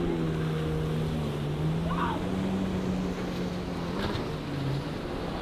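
Watercraft engine running steadily over the wash of waves and wind, rising a little in pitch about a second and a half in, then dropping off near the end.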